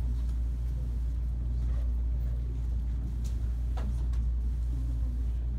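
Classroom room tone: a steady low hum, with a few faint rustles and soft clicks about the middle.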